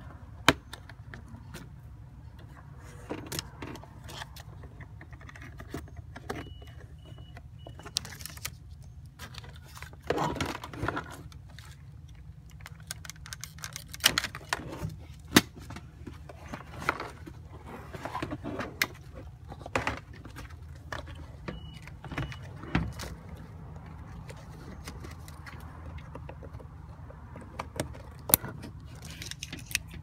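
Scattered clicks, taps and rattles of plastic and metal parts being handled inside an opened car door, over a steady low hum.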